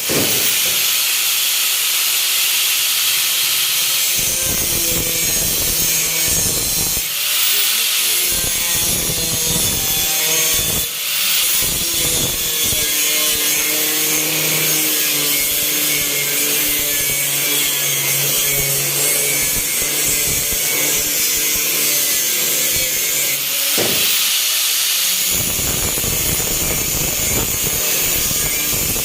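A power tool working on car body metal: a steady, loud, harsh rasping noise that runs on with a faint motor hum under it.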